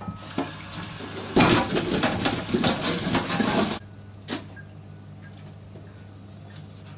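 Kitchen tap water running over dried figs in a stainless-steel mesh colander as they are rinsed of sand, louder after a second and a half, then cut off abruptly near four seconds. A single short knock follows.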